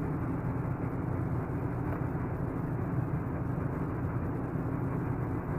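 Steady whirring drone of running machinery with a low hum under it, unchanging throughout.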